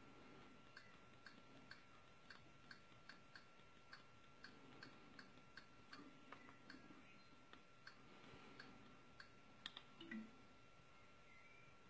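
Faint, regular clicking, about two clicks a second, as a TV channel menu is scrolled through, over a faint steady high tone; a couple of slightly louder soft knocks near the end.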